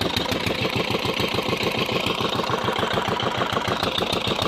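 Engine running steadily at a low, even beat of about six pulses a second.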